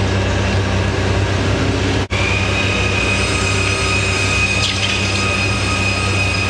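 Induction heater running with a steady electrical hum and low drone, joined about two seconds in by a high steady whine, as it heats a steel blade to red heat.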